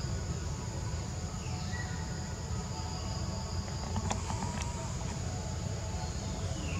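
Steady high buzzing of insects over a low rumble, with a few faint clicks about four seconds in.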